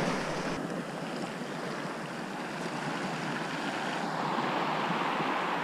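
Sea surf washing on the shore: a steady, even rush of water noise with no separate wave crashes standing out.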